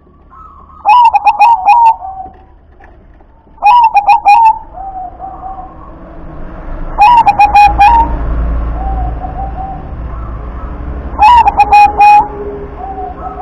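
Zebra dove (perkutut) cooing: four loud phrases of quick staccato coos, one about every three to four seconds, with softer, lower coos in between.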